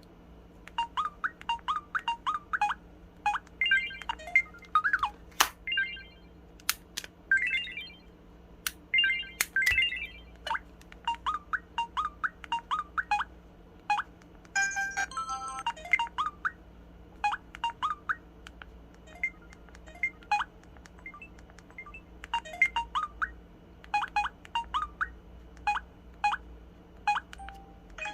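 Samsung SPH-W8350 'Magic Hole' mobile phone playing its built-in sound effects: a long string of short electronic beeps, chirps and brief jingles, one after another with short gaps between them.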